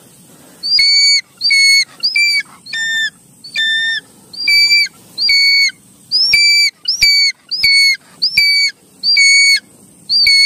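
Changeable hawk-eagle calling over and over: a series of about a dozen loud, shrill whistled screams, each about half a second long, coming about once a second.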